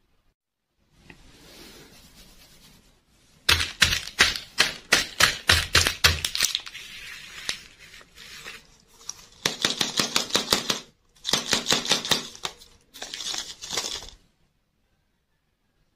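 Crisp plastic clicking and crinkling from hands handling large plastic-wrapped toy lollipops: a soft rustle, then a dense run of quick clicks, then three shorter bursts.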